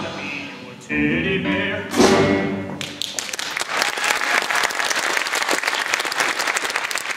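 A stage musical's band and singers end a number: a held chord about a second in, then a final accented hit near two seconds that rings off. From about three seconds in a theatre audience applauds steadily.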